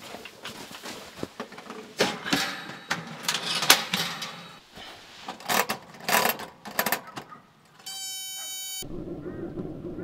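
Paseco Camp 27 kerosene heater being set down and its ignition knob turned: irregular clunks, clicks and rattles, then a short electronic beep about eight seconds in. Right after the beep a steady low buzz starts as the heater lights.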